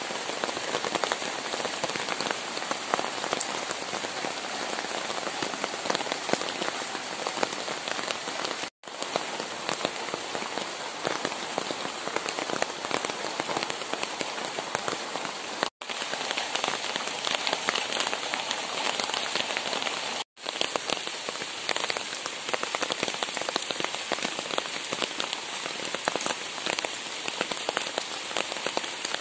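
Steady rain falling on leafy garden shrubs: a dense, even patter of drops. The sound cuts out for an instant three times.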